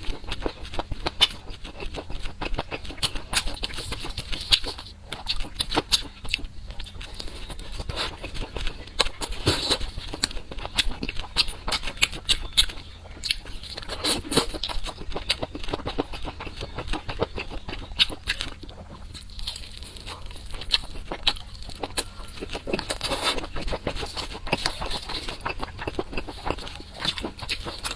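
Close-miked eating sounds: rapid, irregular crackling and smacking of food being chewed, with no real pauses.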